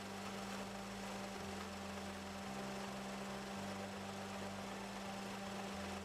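Car engine idling with the air-conditioning compressor engaged: a steady hum with no belt squeal, the aircon belt having just been tensioned.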